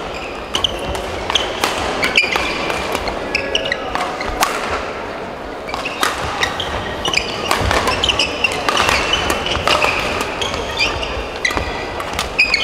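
Doubles badminton rally: rackets striking the shuttlecock in a string of sharp, irregularly spaced smacks, with voices chattering in the background.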